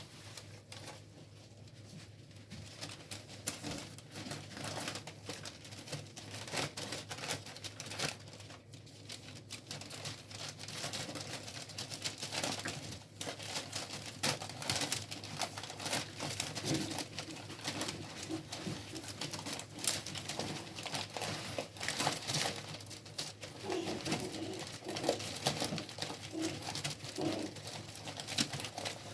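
Mame shiba puppies moving about on crinkly bedding: a steady crackle of rustling and scratching, with several short low calls in the second half.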